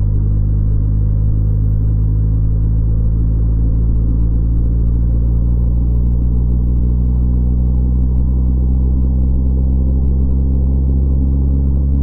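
Steady low rumble and drone of a car cruising on a highway, heard from inside the car. The sound is dull, with no high sounds, and holds even throughout.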